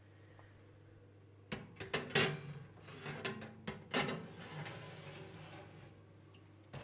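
Metal baking tray loaded with a cast iron sign scraping and clattering as it is slid along an oven's rack runners, several sharp knocks and scrapes in the middle, over the oven's steady low hum.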